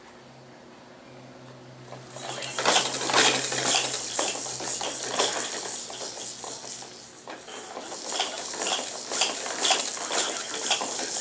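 Hard plastic toys on a baby jumper's activity tray rattling and clacking in quick, irregular clatters as the baby bats and spins them. The clatter starts about two seconds in.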